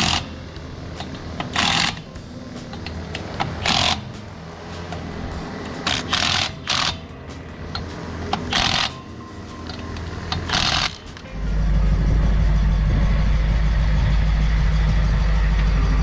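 An impact wrench in short bursts, six in all, running lug nuts onto a wheel. About eleven seconds in, a vehicle engine starts and runs steadily.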